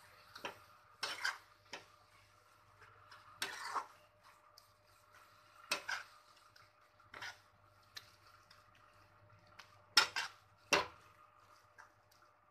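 A metal spatula scraping and knocking against a kadai while stirring a thick masala, in irregular strokes every second or two, with two louder clacks close together about ten seconds in. A faint steady hum runs underneath.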